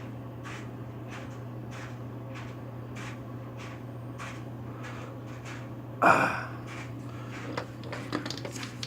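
Hands fitting a toilet supply line, with small clicks and faint ticks about twice a second over a steady low hum. About six seconds in comes one loud, sudden, short noise, then a few light clicks near the end.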